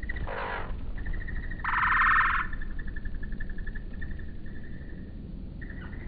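A high, rapidly pulsing animal trill that runs on steadily, broken by two short buzzy calls, the louder one about two seconds in, over a low background rumble.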